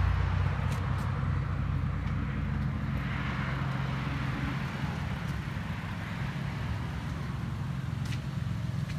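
1992 Lexus SC300's 2JZ-GE inline-six running through straight-piped dual exhaust, mufflers and resonator deleted. It eases down to a steady idle in the first second, then holds a steady low rumble.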